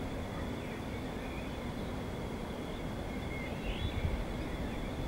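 Distant helicopter in flight: a steady low rumble, with a few faint high chirps now and then.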